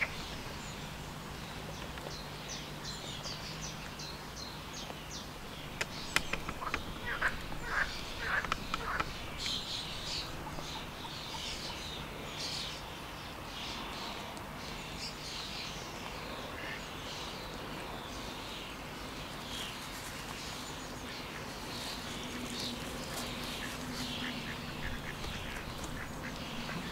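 Waterfowl calling: many short, high calls, bunched about six to nine seconds in and coming thickly again through the second half, over a faint steady low hum.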